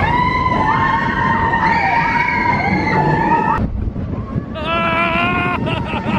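Roller coaster riders screaming and whooping: several overlapping, long, wavering high cries, over the rumble of the coaster train running on its track.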